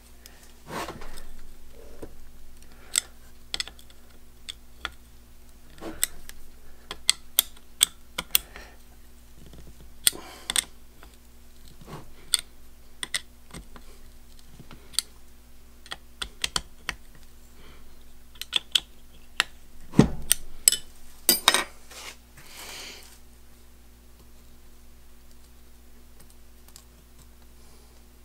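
Irregular metallic clicks and clinks of a hex key and a T-handle hex wrench turning screws in the steel index plate of a super spacer, stopping about 23 seconds in. A steady low hum runs underneath.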